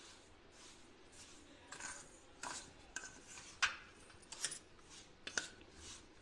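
A spoon scraping and clinking against a stainless steel bowl while stirring semolina and curd into a thick mix. The strokes come irregularly, with a few sharper clinks, the loudest a little after three and a half seconds in.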